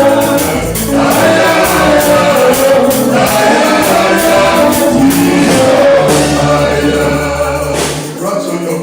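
Gospel worship song sung by a congregation and singers over a live band, with a low bass line and a steady percussion beat. The bass drops out near the end.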